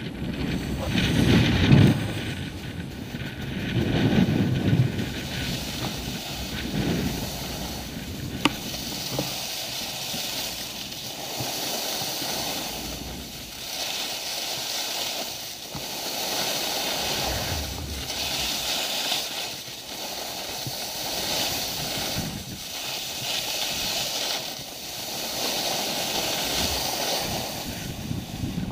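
Skis hissing and scraping over packed snow, swelling and fading about every two seconds with each turn. Wind buffets the camera microphone, most heavily in the first few seconds.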